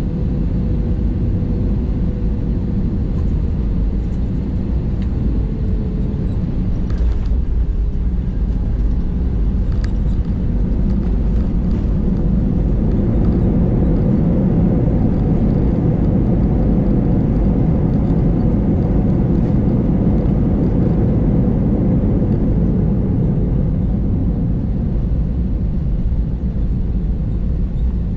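Inside the cabin of an Airbus A320 during landing: a steady engine and airflow rumble with a faint, slowly falling engine tone, and a few knocks as the wheels touch down. Midway through, the noise swells as the aircraft decelerates on the runway with its ground spoilers up, then it eases near the end.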